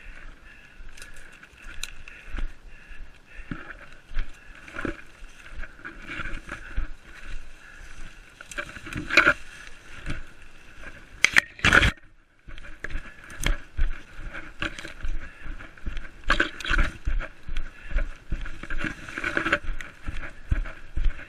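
Footsteps of a runner crashing through forest undergrowth, with branches and leaves swishing and scraping against clothing and the camera. From about halfway, the footfalls settle into a quick even rhythm of about two to three a second.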